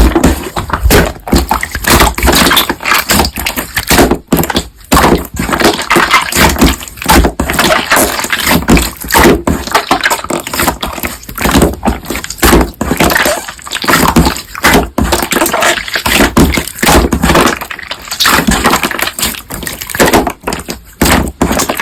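Slime being squished and kneaded by hand: dense, irregular wet crackling and popping, with short pauses about every second.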